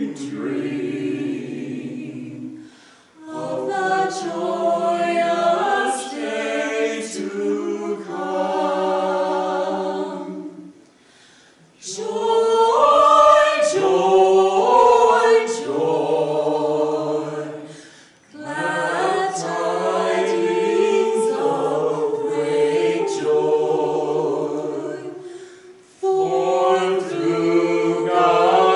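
Mixed vocal quartet of two men and two women singing a cappella in harmony, in phrases broken by short pauses for breath.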